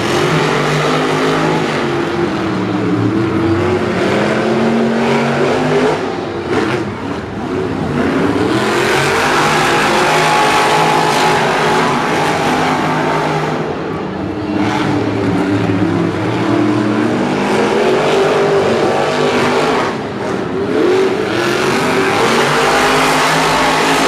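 Monster truck engines, supercharged V8s, revving hard under racing throttle, their pitch climbing and falling repeatedly. The throttle is briefly lifted a few times before the engines wind up again.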